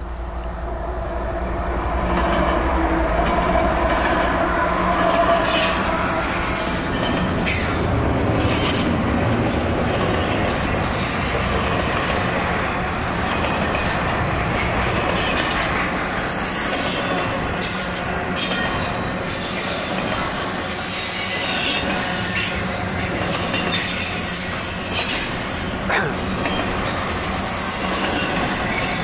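Canadian Pacific double-stack container train rolling past: continuous rumble and rattle of loaded well cars, with wheel squeal strongest in the first few seconds and scattered clacks from wheels over the rail. The sound swells over the first couple of seconds, then stays steady.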